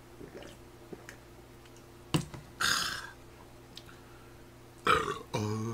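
Table sounds after a drink of makgeolli: a sharp knock about two seconds in, as the plastic jug is set down, then a short breathy exhale. Another knock near the end, chopsticks against the pan, then a short grunt, all over a steady low hum.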